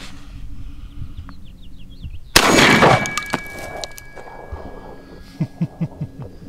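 A single shot from a Beretta 1301 Tactical 12-gauge semi-automatic shotgun about two and a half seconds in, followed by a thin ringing tone that hangs for a few seconds. A few soft knocks come near the end.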